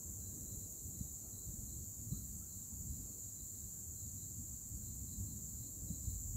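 Crickets chirping in a steady, high-pitched night chorus over a low, uneven rumble.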